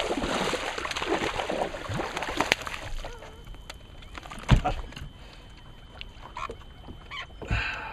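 Water splashing as a hooked largemouth bass thrashes at the surface while being reeled to the boat, for about three seconds. A single loud thump on the boat follows about four and a half seconds in, and a smaller knock near the end.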